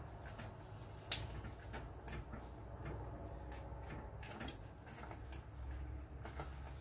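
Silicone spatula stirring and scraping thick brigadeiro mixture against the bottom and sides of an aluminium saucepan, with irregular soft scrapes and ticks and one sharper click about a second in. The mixture is being cooked down and thickening toward a piping consistency.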